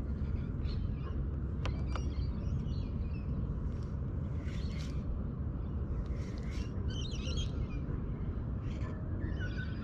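Small birds chirping and calling in short, scattered phrases over a steady low background rumble, with two sharp clicks about two seconds in.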